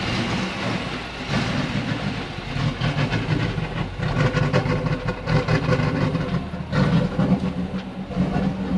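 2019 Nissan Titan's 5.6-litre V8 engine running steadily, with a fluttering low rumble, on a truck that has been hard to start and stalling.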